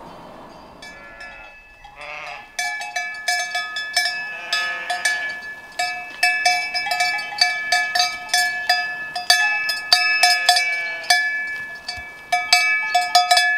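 A neck bell on a running Valais Blacknose sheep clanging rapidly and irregularly with each stride, starting about two and a half seconds in. A few bleats from the sheep come in between.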